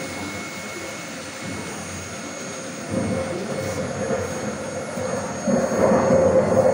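Rumbling thunder sound effect from a model railway layout's simulated storm, a low roar that swells about three seconds in and again near the end.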